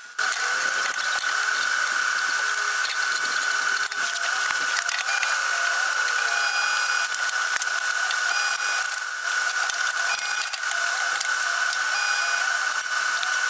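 MIG welding arc laying one long continuous bead on the steel slam plate under the frame: a steady crackling hiss that starts just after the beginning.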